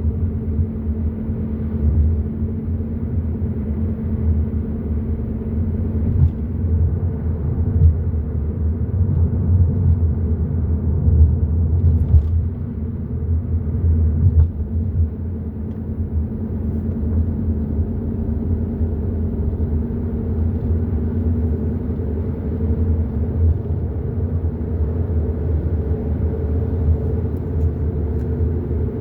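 Hyundai i30 N Line driving at a steady pace: a continuous low road rumble with an even engine drone, and a few faint ticks.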